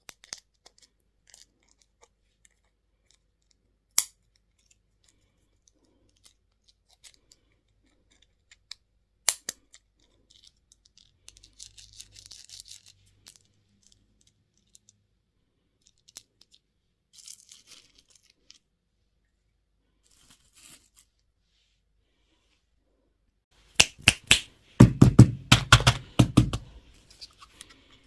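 Plastic candy wrapper being handled and torn open: a few sharp clicks and soft crinkles, then a loud burst of crackling tearing for about three seconds near the end.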